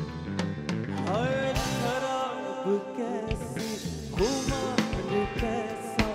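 Live band music: electric guitar and drum kit, with a male lead singer coming in about a second in on long, gliding notes.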